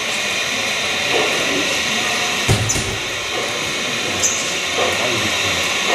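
LGB garden-railway model of a Harz narrow-gauge steam tank locomotive running slowly, its sound giving a steady steam hiss with a few short sharp bursts; faint visitor voices behind.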